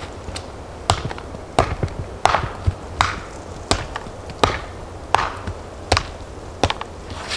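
A hand tool strikes stone on a dry stone wall again and again in a steady rhythm, about ten sharp blows at roughly one every 0.7 seconds.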